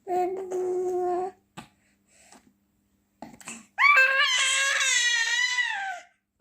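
Six-month-old baby girl vocalizing: a short pitched call at the start, then after a pause a longer, loud, high-pitched call of about two seconds that wavers and drops in pitch at the end.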